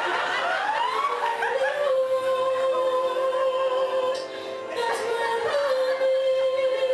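Recorded song with a singing voice: rising notes, then one long held note, a short break, and a second long held note.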